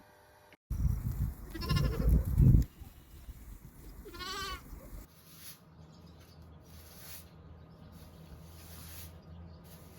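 Goat bleating twice, about two and a half seconds apart, each call a quavering, wavering cry; the first is over a heavy low rumbling noise.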